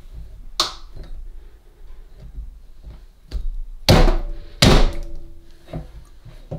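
Metal clicks and knocks as chrome lever handles are pushed back onto the splines of a quarter-turn kitchen mixer tap's ceramic cartridges. A light click comes just after the start; two loud knocks follow about four and four and a half seconds in, each ringing briefly.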